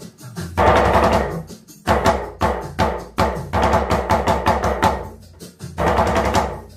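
Iraqi gahf hand drum struck rapidly with both hands in short phrases, played over a recorded southern Iraqi rhythm track.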